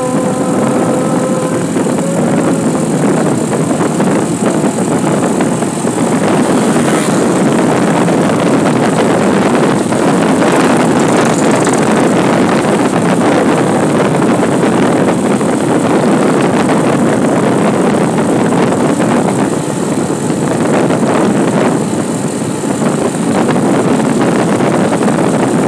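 Steady rush of wind and road noise from a vehicle moving at speed along a paved road. A steady tone fades out about two seconds in.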